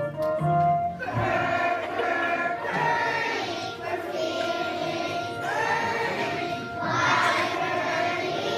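A group of children singing together with musical accompaniment; a few clear single notes come first, and the full group of voices comes in about a second in.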